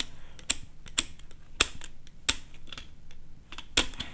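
Screwdriver tightening the terminal screws of a plastic electrical switch board: irregular sharp clicks and ticks as the tool and screws knock against the plastic, the loudest near the end.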